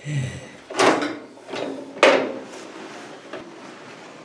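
Homemade charcoal grinder, a sliding slicer blade driven by a hand-turned wheel, chopping lumps of charcoal: two loud sharp crunching knocks about a second apart, then a fainter rattle of the mechanism.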